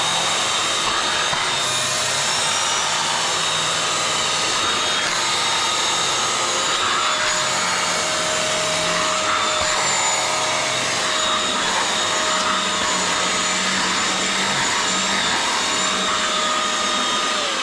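Vacuum motor running steadily with a constant whine while a suction tool pulls foam and dirty cleaning solution out of an Alcantara car seat. It is switched off at the very end, and its pitch starts to fall.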